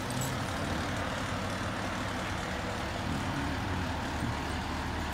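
Fire engine's diesel engine running steadily as the truck pulls slowly away.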